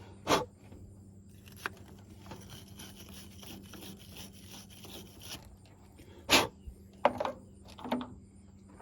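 Wire-brush battery terminal cleaner scrubbing a corroded lead battery post and cable terminal: a faint rubbing scrape, broken by a few sharp clacks near the start and in the last few seconds.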